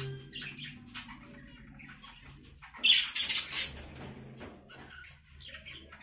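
Small cage birds chirping in short, high calls, with a louder burst of chirps about three seconds in.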